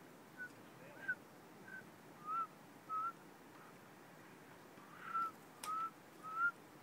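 A series of eight short, slightly rising whistles: five in quick succession, a pause of about two seconds, then three more.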